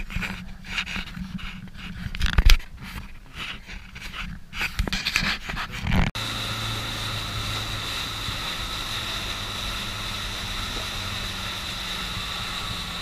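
Close rustling and handling noise with a loud knock about two and a half seconds in, then, after an abrupt cut about six seconds in, the steady drone of a small boat's engine under way with wind and water rushing.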